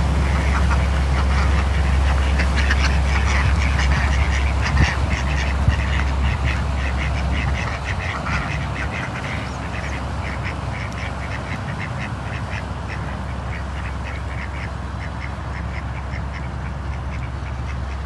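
Indian Runner ducks quacking in quick, repeated calls, several a second. Under them, a low steady rumble fades out a little under halfway through.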